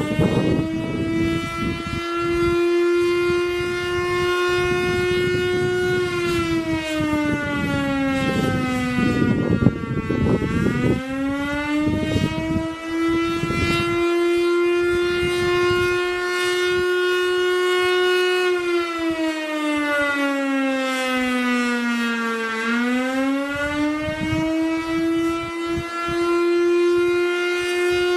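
Federal Signal STL-10B single-phase siren sounding the Attack signal: a deep wail held near its top pitch that slides down and back up twice, bottoming out about nine seconds in and again about twenty-two seconds in.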